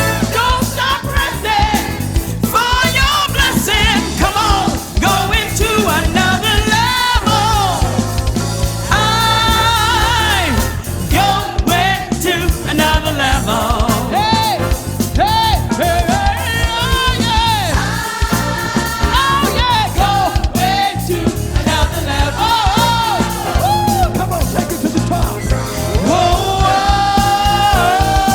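Church praise team singing a gospel worship song over a live band, with bass and drums underneath.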